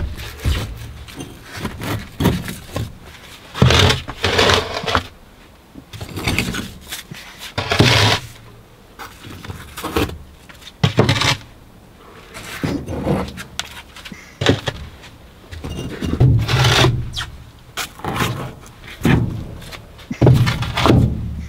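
Firebricks being lifted out of a maple evaporator's firebox and handled one after another: scrapes of brick on brick and dull knocks, every second or two.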